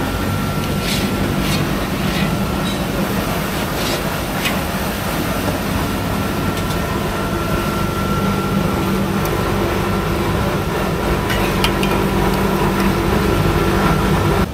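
Steady mechanical hum from stall machinery, with a few light clicks of a knife and spatula against a large steel pan of rice cake.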